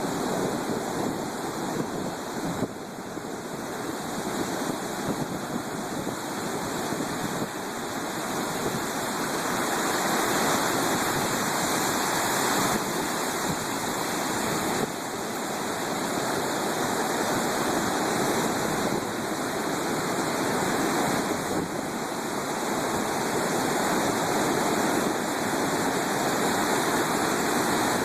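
Storm waves on the Black Sea: a continuous rush of breaking surf that swells louder about a third of the way in.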